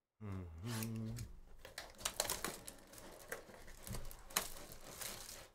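Plastic shrink-wrap crinkling and tearing as it is stripped off a sealed box of trading cards, in quick irregular crackles from about a second in.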